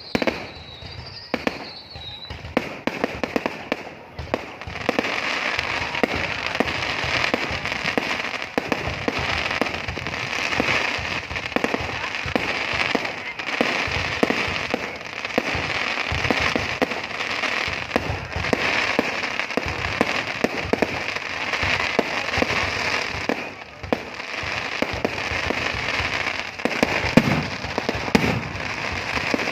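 New Year's Eve fireworks display: a dense, continuous crackle of many sharp pops and bangs that thickens after the first few seconds. A high, wavering whistle runs through the first two seconds.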